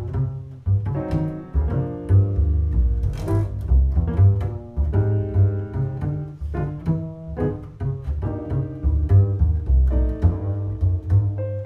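Acoustic double bass played pizzicato in a jazz setting: a continuous line of plucked notes, deep and full.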